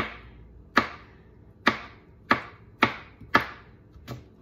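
Chef's knife slicing a dill pickle on a plastic cutting board: seven sharp knocks of the blade hitting the board, about one every half second to second, the last one softer.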